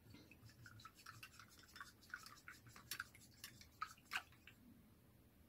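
Paintbrush being swished and tapped in a tin of rinse water: a faint, quick run of small clicks and splashes, with a sharper tap about four seconds in.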